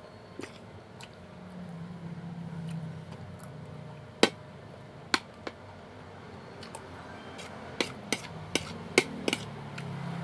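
Eating utensils clinking against a dish while someone eats pork soup: sharp single clicks, the loudest about four seconds in and a quick run of them near the end.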